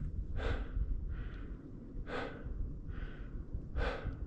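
A person breathing hard close to the microphone after a fall: three strong breaths about a second and a half apart, with a softer breath between each, over a steady low rumble.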